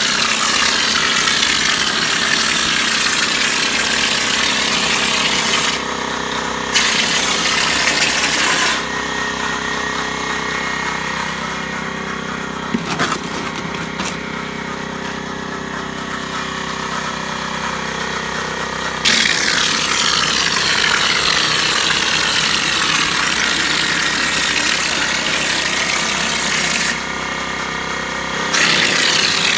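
Cement hopper spray gun blasting compressed air in long hissing bursts as it sprays cement, with the 6-gallon air compressor's motor running steadily underneath. The hiss stops briefly about six seconds in, then for a long stretch from about nine to nineteen seconds, then starts again.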